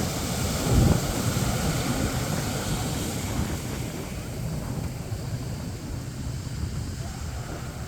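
Sea waves washing onto a sandy beach, with wind buffeting the microphone; a louder gust comes about a second in.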